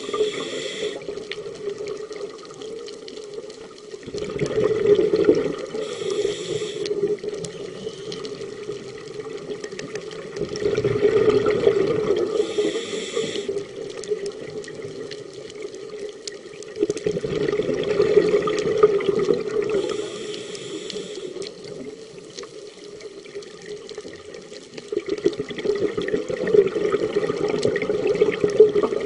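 Scuba diver breathing through a regulator underwater: a short hiss on each inhale, then a loud gurgling rush of exhaled bubbles lasting a few seconds, repeating about every six to seven seconds, four exhales in all.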